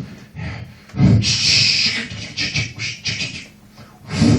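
A performer's mouth-made sound effect for a machine spitting out paper: a thud, a loud hiss lasting about a second, then a quick rattling run of short pulses, beatbox-style.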